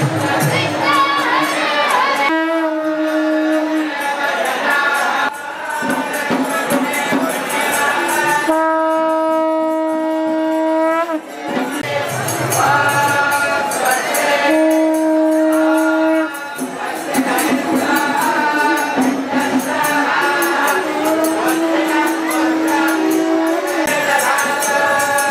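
Devotional kirtan singing with jangling hand cymbals. It is broken about four times by long, steady blasts of a conch shell, each lasting about two seconds at the same pitch, one bending upward as it ends.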